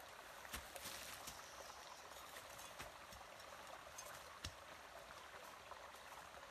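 Faint footsteps on dry leaf litter, a few soft irregular crunches and snaps, over a steady faint rushing hiss.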